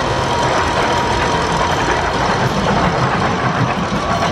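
Amusement-park ride machinery running, a steady mechanical rumble with a thin whine.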